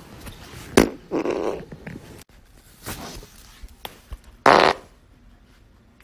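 A woman breaking wind: a few short farts, the loudest about four and a half seconds in.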